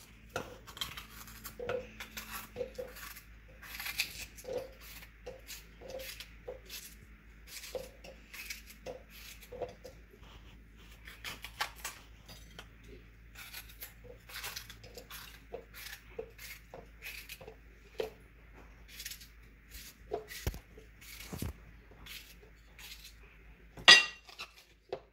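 Red bell pepper being torn apart by hand and the pieces dropped into a plastic blender cup: a run of small irregular taps and snaps, with one sharper clink near the end.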